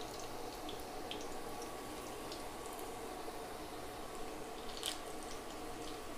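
Battered green chillies (mirchi bajji) deep-frying in hot oil in a kadai: a steady sizzle with bubbling and a few sharp crackles, the loudest nearly five seconds in.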